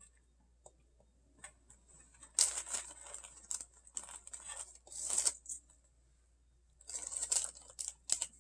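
Crinkly plastic cracker wrapper being handled, two bouts of rustling about two seconds in and again near the end, as a cracker is taken out.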